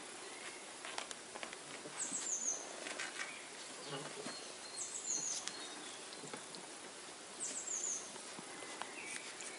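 Flat-coated retriever puppies scuffling together on bedding, with scattered rustles and clicks, small squeaks and a few low grunts. Over this, a bird gives a short, high, descending run of notes three times, about every three seconds.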